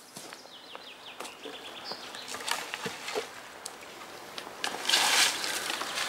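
Footsteps and small crackles of twigs on a leaf-littered forest floor, with a bird trilling briefly in the background. From about five seconds in, a stiff hand brush sweeps in strokes across a rough concrete tabletop, scraping off leaves and grit; these strokes are the loudest sound.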